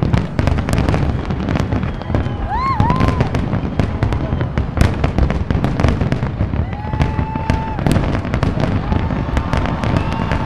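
Fireworks finale: a dense, continuous barrage of rapid bangs and crackles, with a few brief whistling tones rising and holding over it.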